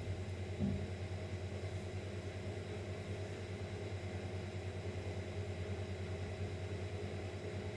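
Steady low hum with a faint even hiss and no speech, the background noise of a home recording, with a soft low bump about a second in.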